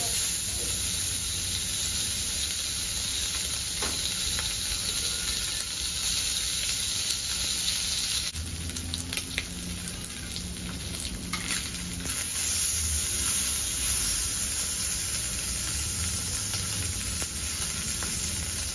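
Marinated pork slice frying in hot oil in a rectangular griddle pan: a steady sizzling hiss, with denser spitting and crackling from about eight to twelve seconds in.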